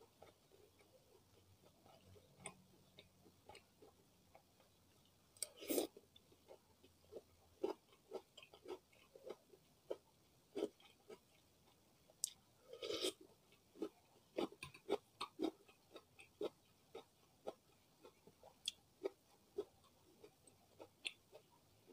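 Close-miked chewing of martabak and pickled cucumber: a run of short, wet mouth clicks, roughly one to two a second, with two louder, longer bursts about six and thirteen seconds in.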